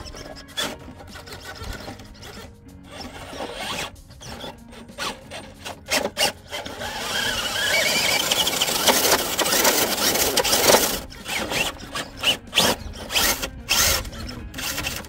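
RC rock crawler's electric motor and geared drivetrain whining in short throttle bursts while its tires scrub and spin against rock. From about seven seconds in, a longer, louder stretch of wheelspin with a wavering whine, then short bursts again.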